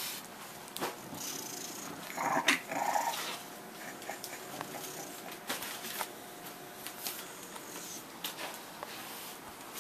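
English bulldogs at play making dog noises, loudest in a short burst about two seconds in, among scattered sharp clicks and knocks.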